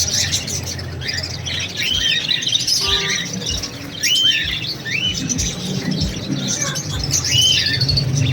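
A room of caged small parrots (budgerigars, cockatiels, lovebirds) chirping and chattering together, with a call that rises and falls repeating about once a second.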